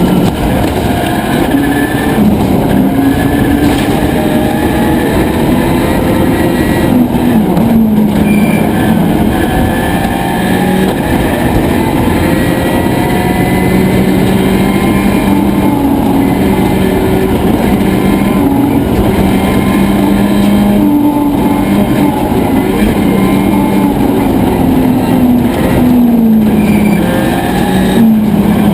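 Subaru Impreza WRC rally car's turbocharged flat-four engine driven hard on a stage, its pitch climbing and falling again and again through gear changes and corners. A few brief cut-backs in the engine note come where the driver lifts off or brakes.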